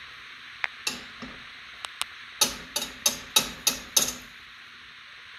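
A metal wire whisk tapping against the rim of a frying pan: a few light clicks, then a quick run of about seven sharp metallic clinks, roughly three a second, each ringing briefly.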